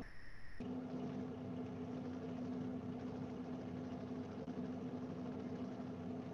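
Steady low hum with a faint hiss, background noise from an open microphone on a video call. For about half a second at the start the hum drops out and a short high tone sounds.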